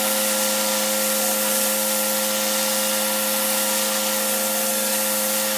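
Pressure washer cleaning block paving with a rotary surface cleaner: a steady hiss of high-pressure water spray over a constant machine hum.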